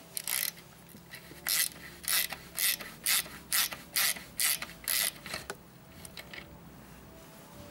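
Hand ratchet turning a socket on a motorcycle radiator mounting bolt, clicking in repeated strokes about twice a second while undoing the bolt, then stopping about five and a half seconds in.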